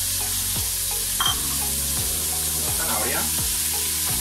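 Chopped vegetables sizzling in hot olive oil in a stainless steel pressure cooker, stirred with a wooden spoon as leek and carrot are added; a brief sharp clink about a second in.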